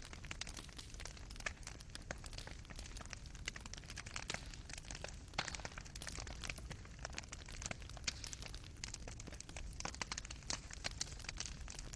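Fireplace fire burning steadily, with frequent irregular crackles and pops from the wood and embers over a low rumble of the flames; a few pops stand out louder.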